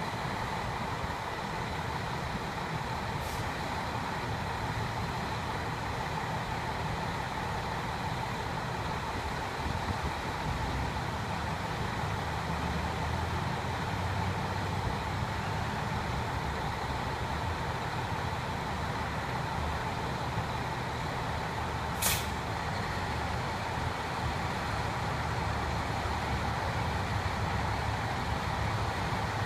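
A heavy truck's engine running steadily with a low drone and a faint steady whine above it. About three-quarters of the way through comes one short, sharp hiss.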